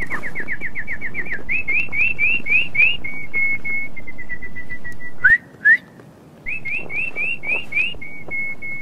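A person whistling a bird-like tune: a quick run of short notes, then a string of rising slurs and a few held notes, with two short chirps about five seconds in before the slurs and held notes return.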